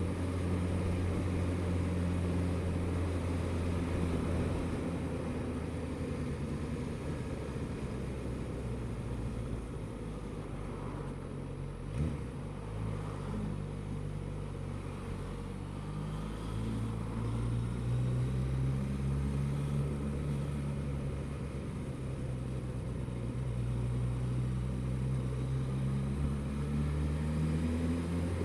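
Suzuki GSX-S1000GT's inline-four engine running under way with a low rumble, its pitch rising as the bike picks up speed a little past halfway and again near the end. A short knock comes a little before halfway.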